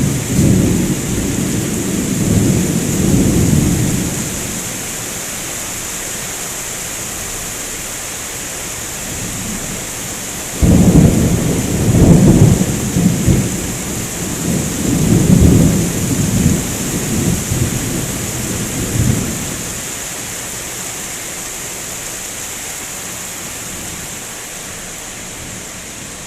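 Thunder in a rainstorm over the steady hiss of rain. One rumble dies away over the first few seconds; then about ten seconds in a sudden loud clap breaks and rolls in several waves for about nine seconds before fading.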